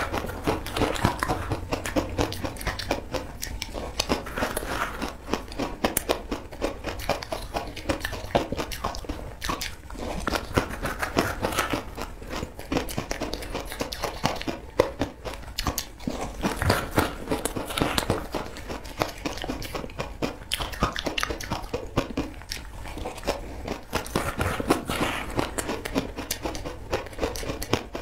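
Close-up crunching and biting of crumbly frozen ice eaten by the spoonful: a dense, continuous crackle of small crunches, with the spoon scooping into the bowl near the start.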